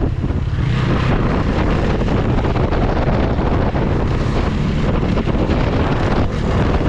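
Bajaj Dominar 400 motorcycle's single-cylinder engine running steadily as the bike is ridden, with wind rushing over the microphone. The rush grows louder about a second in.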